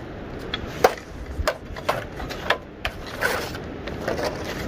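A shovel and a short hand pick scraping and striking dirt and stones while filling a pothole in a gravel road: a string of irregular knocks and gritty scrapes, about one every half second or so.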